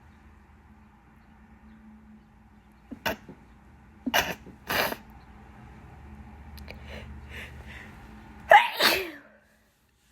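A woman sneezing several times in wet, forceful sneezes: a short one about three seconds in, two close together just after four seconds, and the loudest, a double burst, near the end. Allergic sneezing from pollen.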